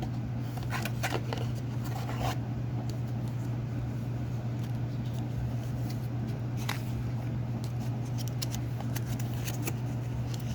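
Scattered light clicks and rustles of packaging and small plastic parts being handled, over a steady low hum.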